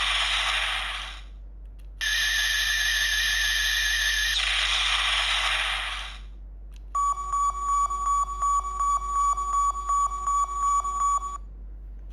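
Electronic sound effects from a Bandai DX Guts Sparklence toy transformation device, played through its small speaker. There are two loud noisy blasts, then a fast pulsing beep at about five pulses a second that cuts off suddenly near the end.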